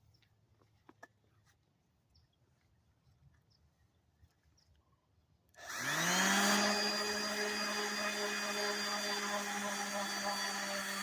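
A few faint clicks, then about halfway through an electric sander switches on: its motor whine rises in pitch as it spins up, then runs steadily.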